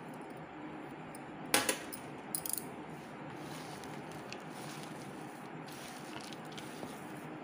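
A metal spoon clinks sharply against the bowl once, about one and a half seconds in, followed by a few lighter clicks. After that come only faint, soft sounds of a hand mixing a mash of potato and crushed noodles, over steady background hiss.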